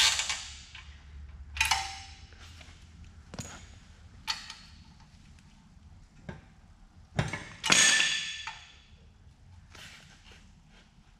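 Metal tools clanking and clinking on the brake caliper bolts of a 4WD front axle as they are undone with a breaker bar and 22 mm socket. It is a string of separate sharp clanks, one every second or two. The loudest comes about three-quarters of the way through and rings on briefly.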